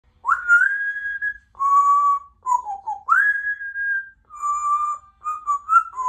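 Congo African grey parrot whistling a run of about six clear notes, each under a second long. Some swoop up and then hold, others stay level or dip, with a few quick short notes near the end.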